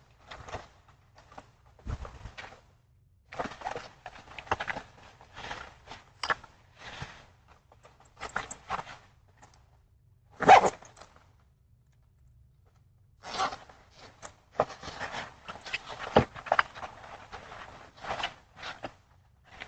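A dog barking in short, irregular barks, loudest about ten and a half seconds in, pausing briefly, then barking again in a quicker run.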